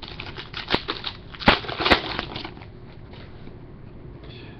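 Baseball cards being handled and laid down on a desk mat: three sharp taps and some rustling in the first two and a half seconds, then quieter.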